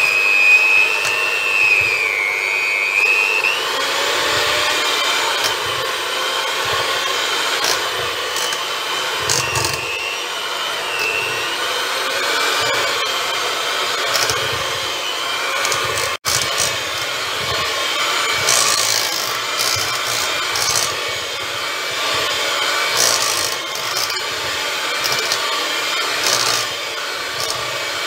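Electric hand mixer running steadily, its beaters whipping chilled milk pudding and whipped cream in a stainless steel bowl. Its whine dips in pitch about two seconds in and rises again a couple of seconds later, and the sound cuts out for an instant about 16 seconds in.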